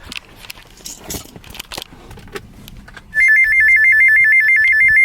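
Faint clicks and rustling, then about three seconds in a loud emergency alert tone starts: a high warble flipping rapidly back and forth between two pitches, the attention signal ahead of a severe thunderstorm warning.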